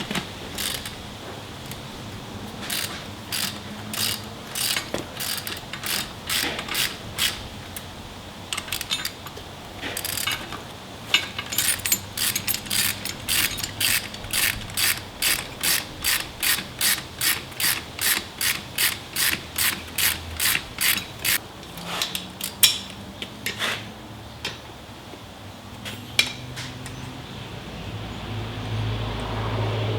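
Hand ratchet wrench clicking as it is worked back and forth. The strokes come unevenly at first, then settle into a steady run of about two a second, and stop about two-thirds of the way through after a few last clicks.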